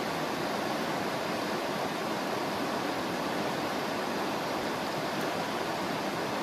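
Fast-flowing mountain river rushing steadily.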